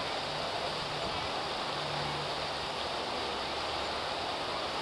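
Fountain's arching water jets splashing steadily into the pool: an even rush of falling water.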